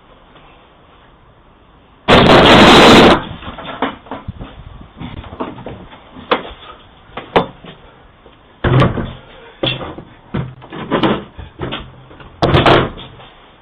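Repeated bangs and knocks on a front doorstep, heard through a Ring doorbell camera's microphone: a long, distorted crash about two seconds in, then a run of sharper knocks and thumps at uneven intervals.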